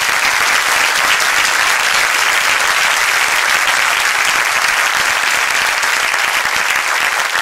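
Audience applauding: a dense, steady round of clapping.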